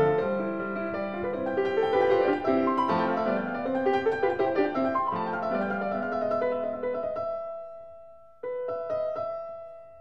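Background music played on a piano-like keyboard: a run of many quick notes, then a held chord that fades away, with a new chord struck near the end.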